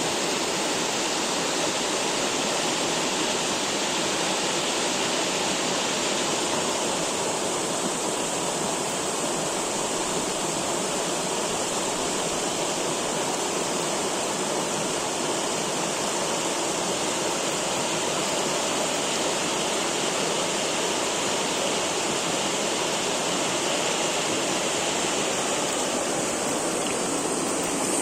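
Mountain stream and small waterfall rushing steadily, a continuous even wash of running water.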